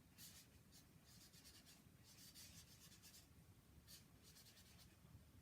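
Faint scratching of a pen on paper: quick writing strokes in short clusters with brief pauses between them.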